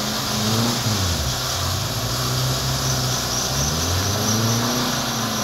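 An off-road 4x4's engine revving up and falling back twice as it churns through a deep mud hole, with the spinning wheels throwing up mud and water.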